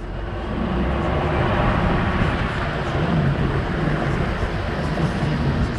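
DAF XF truck's diesel engine running as the truck rolls slowly across a yard, heard from outside the cab; it fades in at the start and then holds steady.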